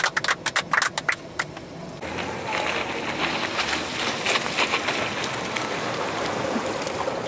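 Several people clapping inside a small plane's cabin for the first second and a half. From about two seconds in, a steady rush of water against a moving boat on the river, with small splashes.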